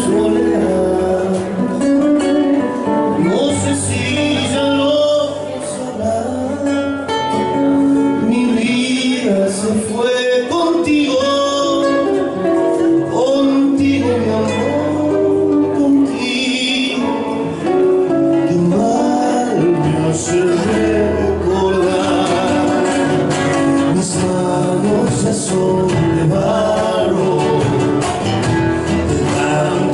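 Folk song with a man singing over guitar accompaniment.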